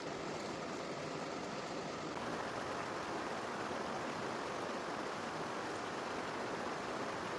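Steady rush of flowing river water, growing a little fuller about two seconds in.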